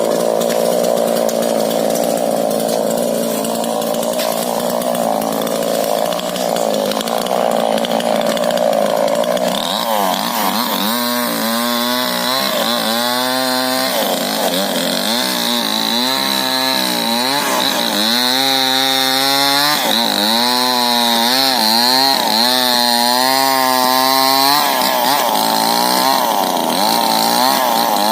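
Chainsaw running at full throttle while felling a rubber tree. It is steady for the first ten seconds or so, then its engine pitch rises and falls again and again through the rest of the cut.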